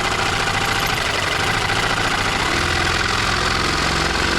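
Reciprocating saw cutting through an aluminum shower-door bottom track, running at a steady speed with rapid, even blade strokes.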